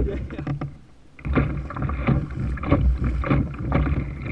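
Wind and water noise on a kayak-mounted action camera, with a steady low rumble and irregular knocks and clicks as the kayak rocks in choppy sea. It starts with a sharp knock, drops quieter briefly, then comes back louder about a second in.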